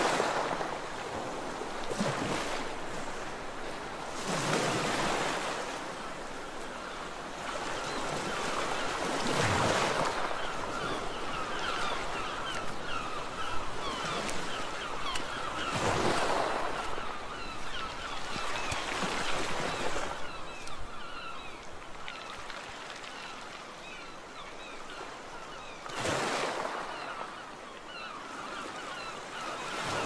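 Sea waves surging and washing in every few seconds, with gulls calling over them from about eight seconds in.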